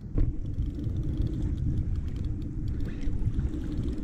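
Low, steady rumbling noise of wind and water buffeting the microphone of a kayak-mounted action camera.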